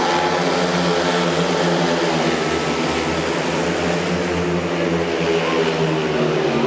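Four speedway bikes' 500 cc single-cylinder methanol-fuelled engines running flat out together while racing through a bend, a steady blended drone of several engines whose pitch wavers slightly.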